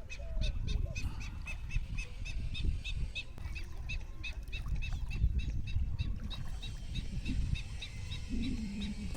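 Birds calling: a rapid series of short, high calls, about four a second, over a low rumbling background, with a lower call near the end.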